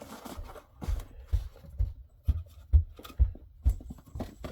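Package and item being handled during unboxing: a run of about eight regular low thumps, roughly two a second, with light rustling and scraping between them.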